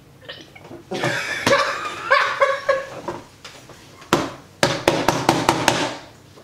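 Wordless vocal reaction to a foul-tasting drink: drawn-out groaning sounds from about a second in, then a sharp knock and a quick run of short bursts of breath and voice.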